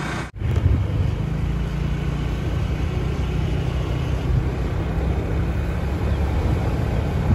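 A motor vehicle engine running steadily with a low drone. The sound drops out briefly about a third of a second in.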